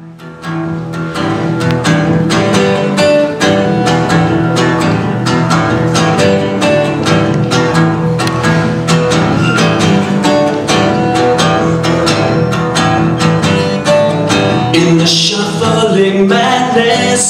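Acoustic guitar strummed solo, playing a song's introduction as a steady run of even chord strokes. It swells up quickly at the start, and the strumming dips briefly near the end.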